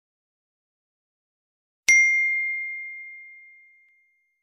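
A single bright bell ding about two seconds in, one clear ringing tone that fades away over about two seconds. It is a notification-bell sound effect for the on-screen subscribe button.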